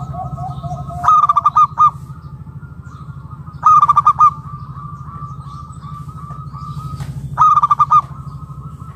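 Zebra dove (perkutut) cooing: three loud bursts of rapid staccato coos, each under a second and a few seconds apart, over softer continuous cooing.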